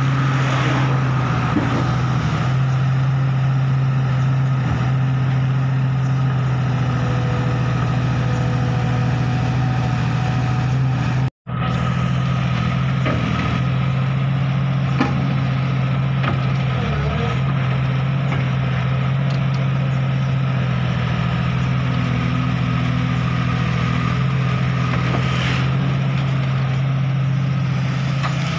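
Komatsu hydraulic excavator's diesel engine running steadily under working load while the machine digs in mud, with a few faint clanks. The sound cuts out for an instant about a third of the way through.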